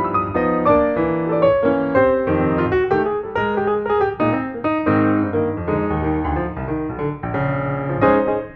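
Background piano music: a continuous flow of notes and chords, with a brief dip just before the end.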